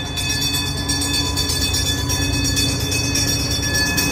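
Pikes Peak cog railway train running close by: a loud, steady rumble with several steady high whining tones over it.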